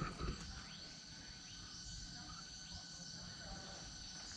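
Steady insect chorus holding several high droning tones, with a few faint chirps over it and a brief low thump at the very start.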